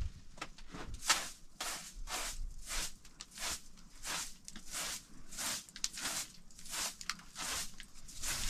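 Short-handled straw hand broom sweeping a carpeted floor in quick, even strokes, about two a second.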